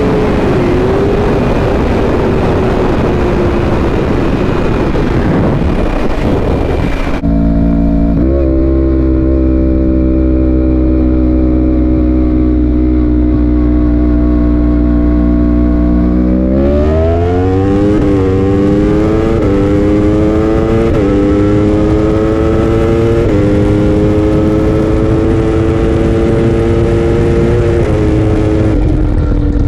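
Sport motorcycle at highway speed, heard from on the bike: heavy wind rush over the engine note. About seven seconds in the wind drops away, leaving a superbike engine running at a steady pitch. From about the middle it accelerates, its pitch climbing in several steps to near the end.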